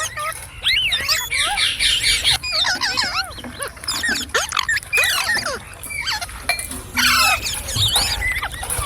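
Indian ringneck parrot chattering: a rapid run of squeaky whistles and calls that swoop up and down in pitch.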